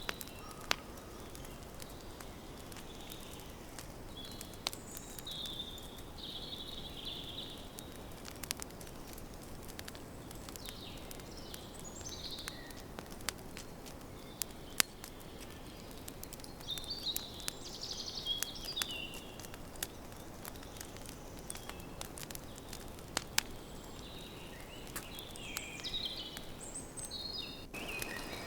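Campfire crackling: scattered sharp pops and snaps over a steady hiss. Birds chirp high in the background several times.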